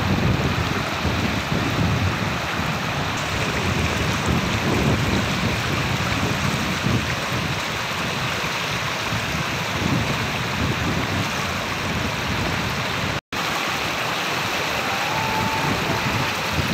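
Fast-flowing floodwater rushing and splashing around people wading in it, a steady hiss with no let-up. The sound cuts out for an instant about 13 seconds in.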